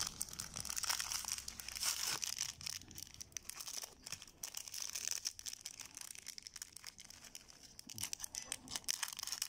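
Clear plastic wrapping around coins and cardboard coin holders crinkling and crackling in the hands as it is cut and pulled open, in irregular crackles.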